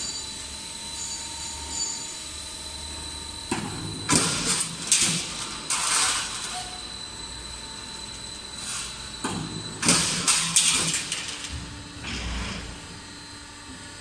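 A steel C strut channel roll forming line with its punch press running, a steady high machine whine under it. There are two spells of loud metallic clattering strokes, one starting about three and a half seconds in and one about nine seconds in.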